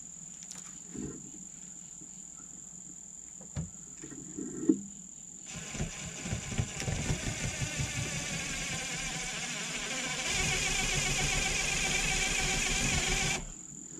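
Cordless impact driver sinking a self-tapping screw into a bus's steel side wall, hammering for about eight seconds and growing louder about two-thirds of the way through as it works through a steel plate behind the wall. A steady high cricket trill runs underneath.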